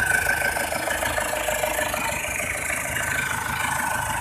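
Freshly overhauled Isuzu Panther diesel engine idling steadily with an even, rapid clatter.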